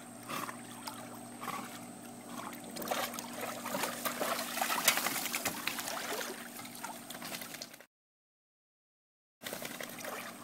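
Water splashing and streaming off a large dog as it swims to the pool steps and climbs out, with many small splashes and drips, busiest in the middle. The sound cuts out completely for about a second and a half near the end.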